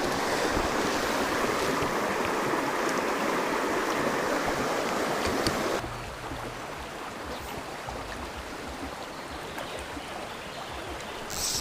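Mountain stream running, a steady rush of water that drops suddenly to a quieter level about six seconds in.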